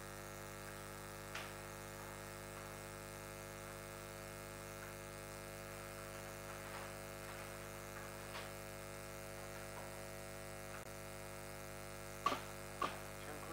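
Steady electrical mains hum from the sound system, made of many fixed tones, with a few faint ticks and two sharper knocks near the end.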